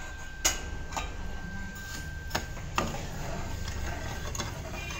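Steel ladle knocking and scraping against a kadhai while stirring sugar into hot water for syrup, with a few sharp clicks: one about half a second in and two more near the middle.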